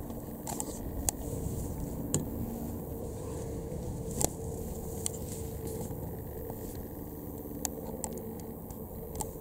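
Steady, faint drone of a distant aircraft engine, with low rumble underneath and several scattered sharp clicks.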